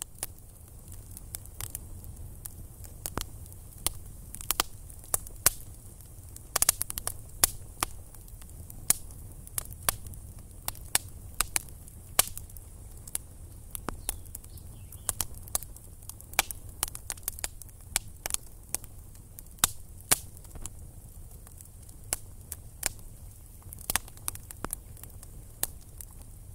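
Campfire of sticks burning, crackling with irregular sharp pops over a low steady rumble.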